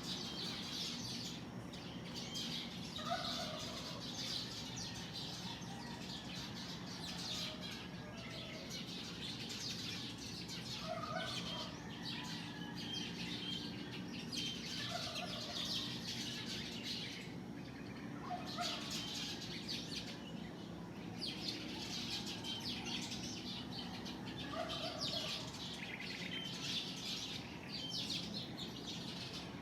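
Many small birds chirping and twittering together. A lower, short call repeats every few seconds.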